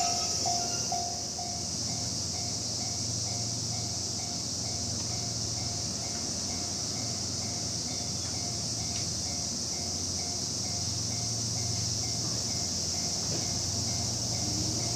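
Level-crossing warning bell ringing about twice a second, loud at first and fading to faint within the first few seconds. Under it, cicadas keep up a steady high-pitched drone, with a steady low hum from the waiting electric train.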